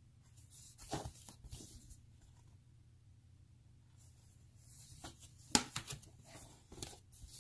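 Stiff cardboard game boards being handled and laid down: scattered rustling and sliding with several sharp taps, the sharpest about five and a half seconds in.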